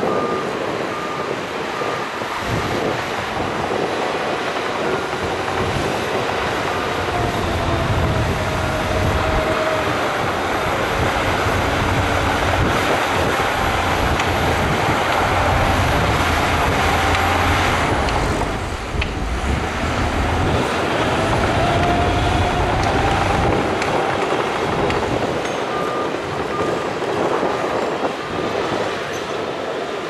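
Shantui crawler bulldozer's diesel engine working hard with steady track clatter, the tracks squealing at times with a wavering pitch, while dump trucks run close by. A reversing alarm beeps briefly near the start and again near the end.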